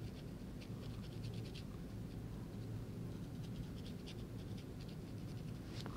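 Faint, short scratchy dabs of a small round paintbrush on a watercolour canvas as white paint is dropped on, coming in quick clusters with brief pauses between, over a low room hum.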